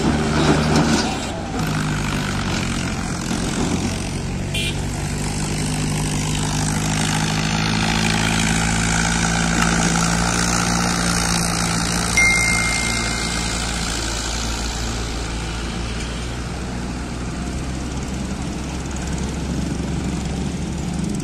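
Diesel farm tractors pulling loaded sugarcane trolleys run past with a steady low engine drone. A short high tone sounds about twelve seconds in.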